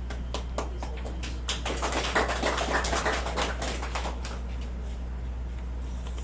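Scattered clapping from a small audience. It thickens in the middle and dies away about four seconds in, over a steady low hum from the sound system.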